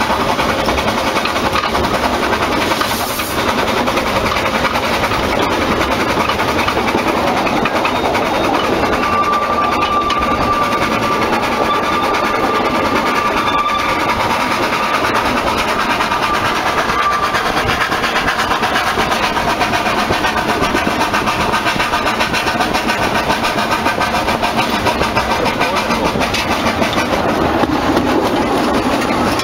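Narrow-gauge steam locomotive running along the track, heard from just behind its cab: a steady, loud mix of engine working and wheels on rails.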